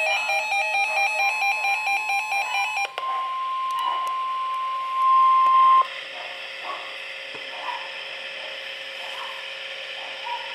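A NOAA Weather Radio warning alarm plays: a single steady 1050 Hz tone over receiver hiss. It is faint at first, loud for about the last second, and cuts off sharply about six seconds in, leaving only radio hiss. For the first three seconds an electronic tune of quick stepping beeps plays over the start of the tone.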